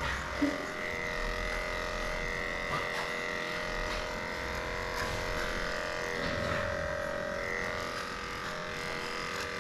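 Cordless electric dog clippers running with a steady whine as they shave matted fur off a schnauzer's leg.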